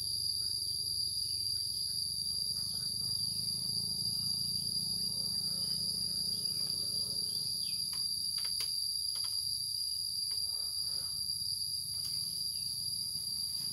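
Steady, high-pitched drone of insects in the surrounding trees, unbroken throughout, with a few faint clicks about two thirds of the way through.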